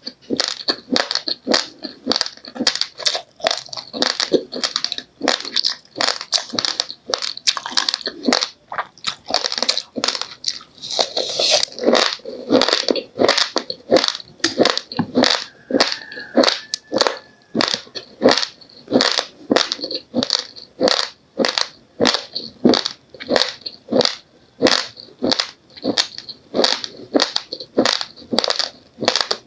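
A person chewing raw, uncooked rice grains close to the microphone: sharp, steady crunches, about two a second.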